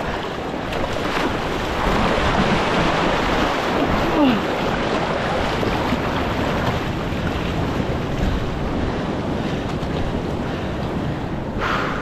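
Sea water surging and washing over a rock shelf in a steady rush of surf, with wind buffeting the microphone.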